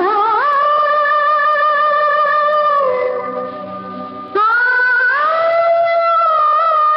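Music received on medium-wave AM from a pirate broadcast station: a melody of long held notes with slight vibrato. It slides up into the first note, dips about three seconds in, and a new note starts about four and a half seconds in.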